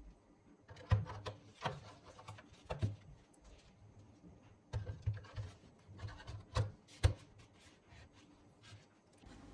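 Faint clicks and knocks of hands handling the parts of a Synology DS220+ NAS, irregular taps with a few sharper knocks about one second and seven seconds in.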